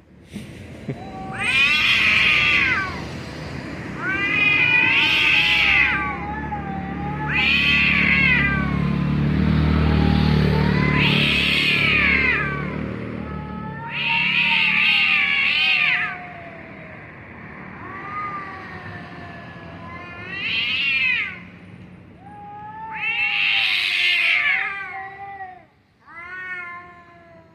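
Two domestic cats yowling, a series of long, drawn-out wavering calls every couple of seconds, some trailing off in a falling pitch, with a low rumble beneath them for several seconds in the middle.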